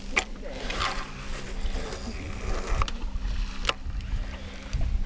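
Wind buffeting the microphone on an open fishing boat, over a steady low hum, with a few sharp clicks and a brief swish about a second in.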